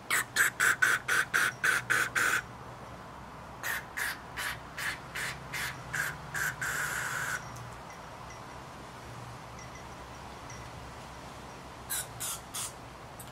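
Short bursts of aerosol carburetor cleaner sprayed through a Honda generator carburetor's passages, about four a second in a run of about ten, then another run ending in one longer spray, and three more near the end. The bursts flush gum out of the carburetor's jets and passages.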